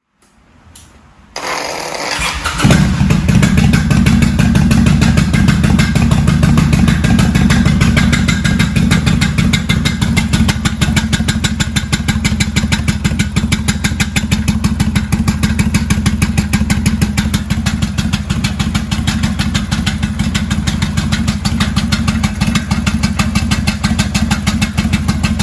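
1995 Kawasaki Vulcan VN800A's V-twin engine being started: a short burst of starter cranking, the engine catching about two and a half seconds in, then idling with a steady, rapid pulsing and a knocking from the engine.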